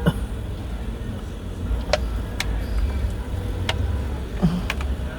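Steady low rumble of a car, with a few short, sharp clicks scattered through it.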